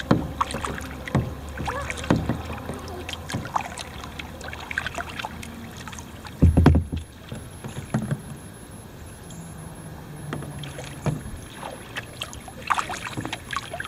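Double-bladed kayak paddle dipping and pulling through river water in repeated strokes, with splashing and dripping from the blades. One loud low thump about six and a half seconds in.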